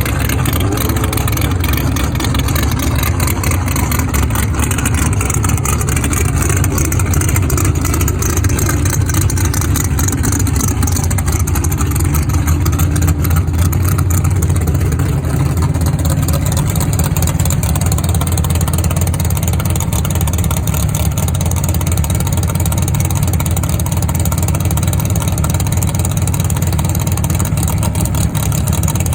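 A large engine running hard and steady, a loud low rumble whose pitch drifts slightly up and down.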